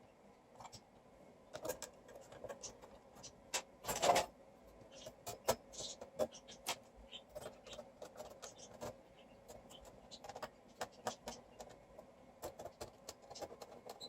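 Irregular small clicks, taps and scrapes of tools and parts being handled, with one louder rustling scrape about four seconds in.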